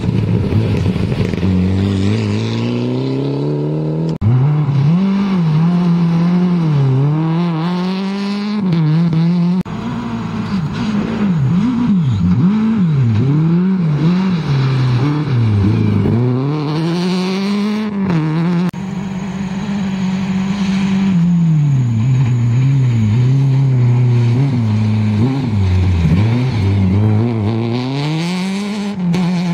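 Rally cars running hard on a dirt stage, engine pitch repeatedly rising under acceleration and dropping on gear changes and lifts through the corner. The sound breaks off abruptly a few times between passes.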